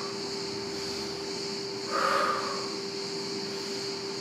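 A woman breathing out hard once, about two seconds in, during a mountain-climber exercise, over a steady background hiss and hum.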